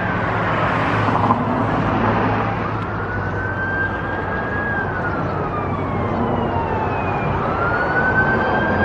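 Emergency vehicle siren sounding a slow wail, its pitch climbing, holding and then sliding down over several seconds, twice. It gets louder near the end as it approaches, over a steady hum of road traffic.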